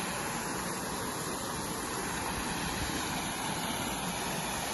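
Water pouring over a small concrete weir and splashing into the pool below: a steady rushing.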